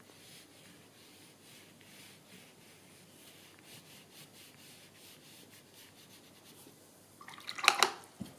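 The rear end of a paintbrush handle is scraping and rubbing over wet watercolour paper in faint, repeated short strokes. About seven seconds in there is a brief, louder clatter of sharp knocks.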